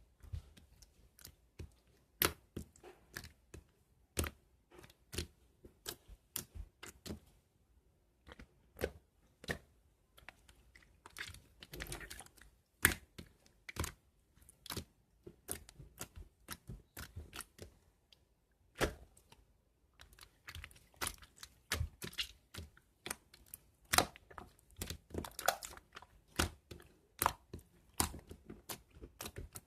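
Slime being pressed, squished and folded by hand, giving irregular sharp clicks and pops as air pockets burst, with a few softer squelching stretches.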